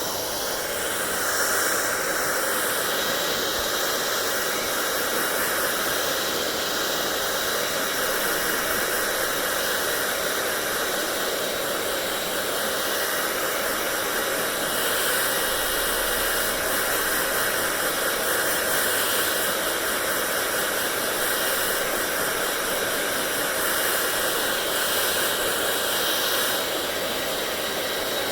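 Hand-held hair dryer running, a steady rush of blown air with a faint high motor whine. It swells up over the first second or so, then holds steady with small shifts in the hiss.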